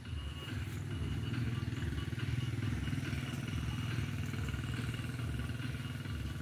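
Small motorcycle engine running steadily, with a fast low pulse. It grows louder about a second in.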